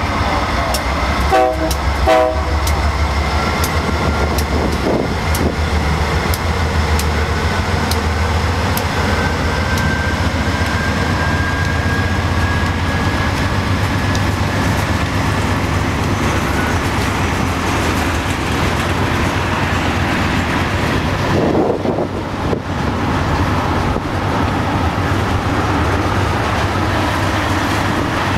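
A freight train of tank cars rolling past: the low throb of the trailing GE Dash 9 diesel locomotive is strongest in the first several seconds, then a steady rumble of steel wheels on rail as a hopper and tank cars go by, with a faint thin wheel squeal for a while. Two short tonal toots come about two seconds in.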